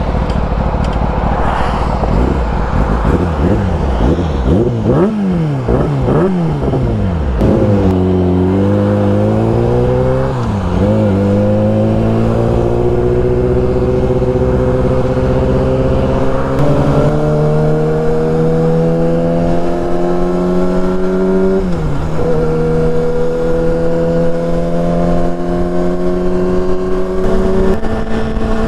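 2005 Yamaha R6's 600 cc inline-four engine under way. Its revs rise and fall unevenly for the first several seconds, then its pitch climbs slowly and steadily, broken by a few brief dips.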